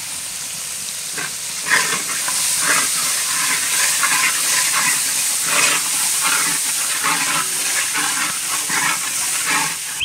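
Onion, ginger-garlic paste and powdered spices frying in hot oil: a steady sizzle, with a spatula stirring and scraping the pan in irregular strokes from about a second in.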